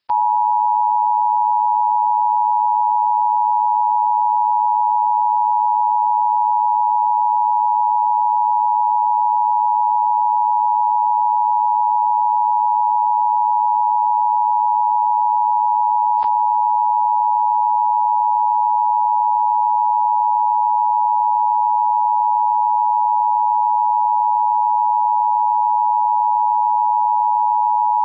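Emergency broadcast alert tone: one steady, unwavering electronic tone around 1 kHz, held without a break while the station stands by for 30 seconds before the next message, with a faint click about sixteen seconds in.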